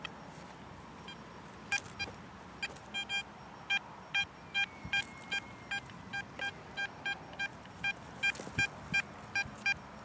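XP Deus metal detector beeping as its coil is swept back and forth over a buried metal target: a short, steady-pitched tone repeating about three times a second, starting almost two seconds in.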